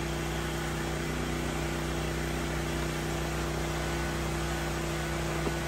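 A machine running steadily: a constant low hum over an even hiss, with no change in pitch or level.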